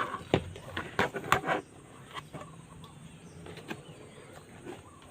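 A few sharp clicks and knocks of small parts and tools being handled on a workbench, bunched in the first second and a half, then only light scattered ticks.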